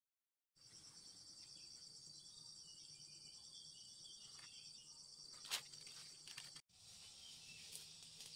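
Faint, steady high-pitched trilling of insects, starting just over half a second in. A single sharp click sounds about five and a half seconds in, and the sound cuts out for an instant about a second later.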